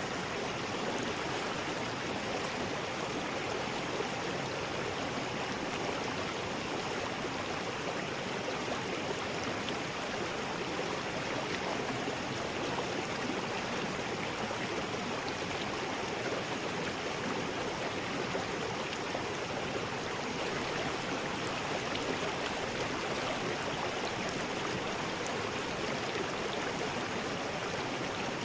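River rapids: water rushing and churning over rocks in a steady, unbroken flow.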